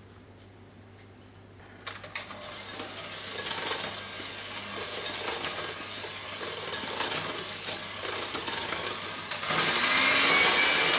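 Moulinex electric hand mixer running, its beaters working lemon zest into thick whipped milk cream in a bowl. It starts about two seconds in with a rattling, clicking motor noise and gets louder with a steady whine from about nine seconds in.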